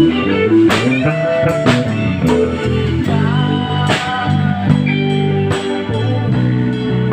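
A band playing an instrumental passage: guitar over bass guitar and keyboard, with a drum kit striking about once a second.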